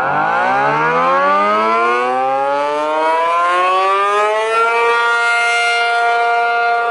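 ACA P-50 rotating two-tone outdoor warning siren winding up, its pitch rising for about four and a half seconds as the rotor comes up to speed. It then settles into a steady two-note chord (470/705 Hz), the alert signal.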